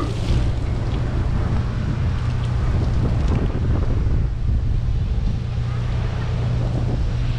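Steady wind rushing and buffeting over a camera microphone while hanging from a parasail in flight, a low, even rumble.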